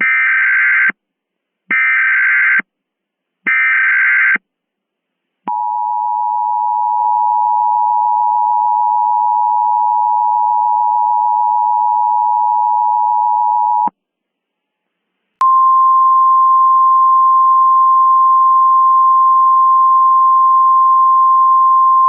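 Emergency Alert System tones. First come three short bursts of SAME header data tones. Then the two-tone attention signal holds steady for about eight seconds. After a short silence, a single steady alert tone begins and keeps sounding.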